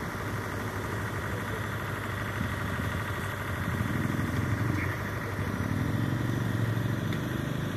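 A steady engine hum running without a break, a little louder from about four seconds in.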